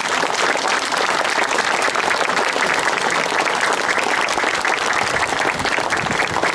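A crowd applauding, dense, even clapping that holds steady without a break.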